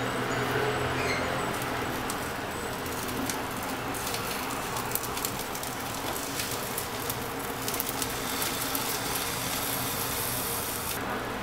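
Egg pancake frying in oil in a ceramic-coated frying pan: a steady sizzle with scattered crackles and pops, which grow denser from about four seconds in. The plastic spatula now and then scrapes and taps the pan as the pancake is rolled up.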